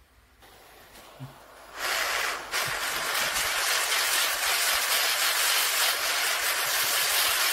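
Jeweller's handheld gas torch flame hissing steadily while annealing a strip of milled metal wire to soften it again; the hiss comes on about two seconds in.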